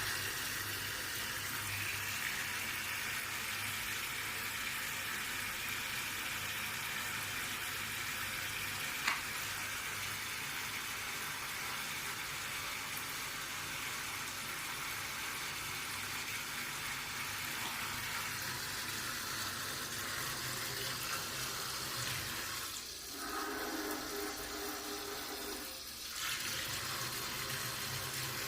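Water running steadily from an electric faucet as a hissing stream. About 23 seconds in the flow sound changes for roughly three seconds, with a low pitched hum, then the plain stream resumes.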